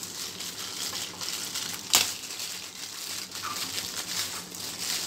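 Thin plastic bag crinkling and rustling as it is pulled off a speaker and its cables, with a sharp snap about two seconds in.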